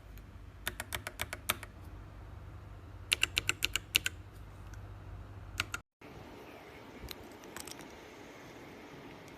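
AKKO mechanical keyboard switches clacking as keys are pressed in quick runs of several strokes. There is a brief dropout about six seconds in, then a few fainter presses.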